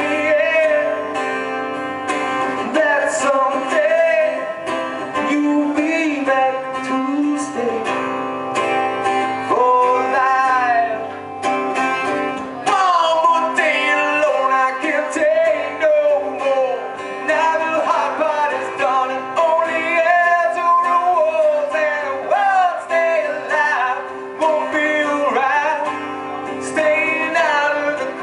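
A man singing a song live to his own acoustic guitar accompaniment, amplified through the stage PA.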